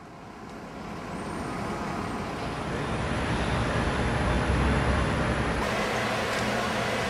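Steady outdoor vehicle and traffic noise: a low rumble under a hiss, growing louder over the first three seconds.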